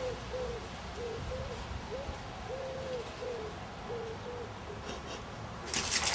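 Siberian husky whimpering: a string of short, low whines, some bending upward, repeated irregularly. A sudden clatter of sharp clicks and short yelps breaks in near the end.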